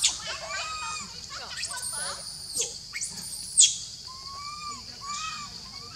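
Young monkey calling over and over: shrill squeals and softer arching coo calls, the distress calls of a youngster separated from its mother, with the loudest squeal about halfway through.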